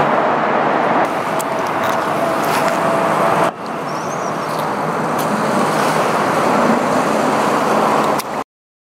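Steady rush of road traffic from a nearby highway, with a faint steady hum from about a second to three and a half seconds in. At that point it cuts to a similar steady rushing noise, which stops dead near the end.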